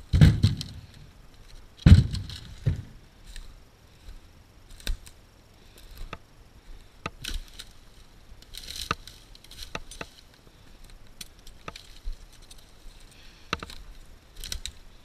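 Firewood rounds dropped into a steel utility trailer: two heavy thuds with a short ringing tail, at the start and about two seconds in. Then footsteps through dry slash, with twigs snapping and scattered sharp clicks.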